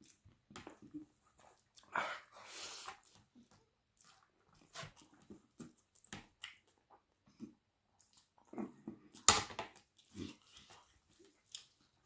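Close-miked eating sounds of chicken wing curry with rice: irregular chewing and lip-smacking, with a longer noisy stretch a couple of seconds in and the loudest burst about nine seconds in.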